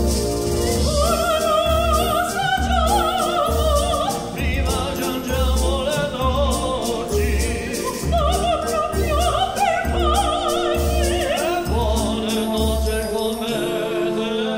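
Operatic singing in a sung exchange between a soprano and a man, the soprano's high line carrying wide vibrato, over an accompaniment with a steady low beat. The beat drops out shortly before the end.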